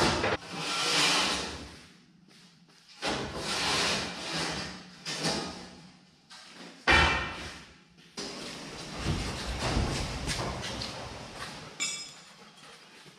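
Shop noise from race cars being pushed around by hand: rolling, scraping and knocks, coming in separate stretches that start and stop abruptly.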